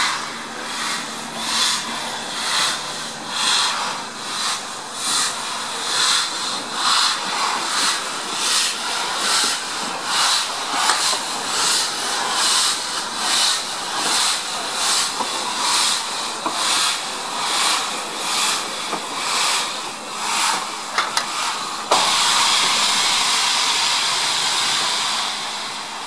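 Steam locomotive, BR Standard Class 4 tank No. 80072, pulling away slowly: a steady rhythm of hissing exhaust chuffs, about one and a half a second, with steam blowing from the open cylinder drain cocks. About 22 seconds in the rhythm gives way abruptly to a louder continuous hiss of steam.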